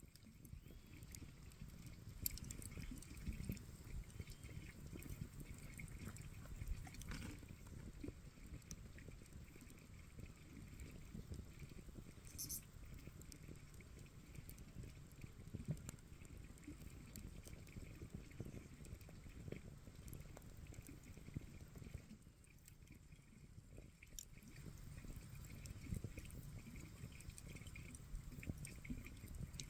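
Campfire crackling faintly, with a few sharp pops from the burning wood.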